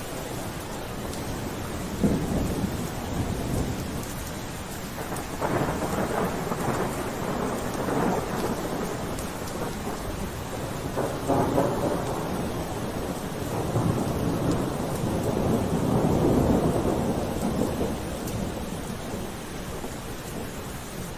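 Steady rain falling, with low rumbles that swell and fade several times over it.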